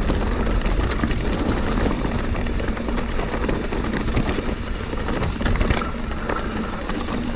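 Mountain bike descending rough singletrack: tyres rolling over rocks and roots, with the chain and frame rattling in many quick clicks over a heavy low rumble.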